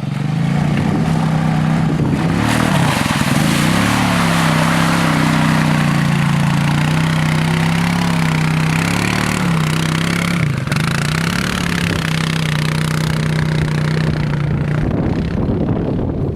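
Small ATV (quad) engine running, its pitch rising and falling as the throttle is worked, over a steady hiss of noise.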